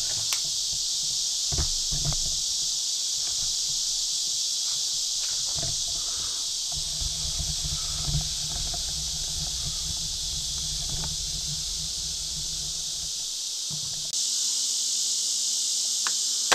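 A steady, high-pitched chorus of insects, with scattered knocks and a low rumbling from the camera being handled and carried in the middle of the stretch.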